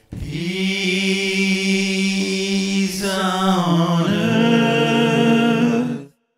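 Sustained wordless vocal harmony, several voices holding chords with vibrato, the pitch shifting about halfway through. It cuts off abruptly about six seconds in.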